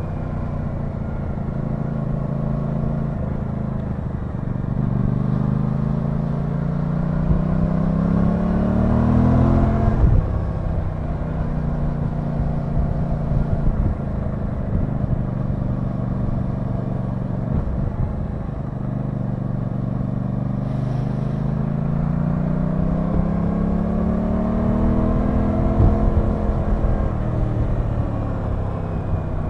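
Aprilia Tuono 660's parallel-twin engine heard from the rider's seat on the move, pulling hard with its pitch rising for several seconds and then dropping abruptly about a third of the way in. After a steadier stretch it climbs again near the end before easing off.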